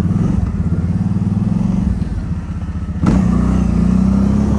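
ATV engine running steadily under throttle while being ridden. The low engine note sags a little past the middle, then comes back louder and steadier about three seconds in.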